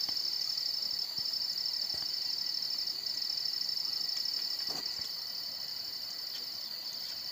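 Insect chorus: a steady, high-pitched, rapidly pulsing trill with a few brief dips, over a few faint knocks.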